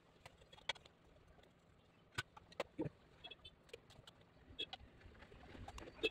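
Scattered faint clicks and light metal knocks from a screwdriver, screws and the sheet-metal casing of an electric-rickshaw battery charger as the case is unscrewed and handled. A rising noise begins near the end.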